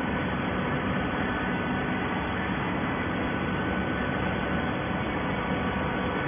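Plastic bottle baling machinery running: a steady, even mechanical noise with a faint hum, unchanging throughout.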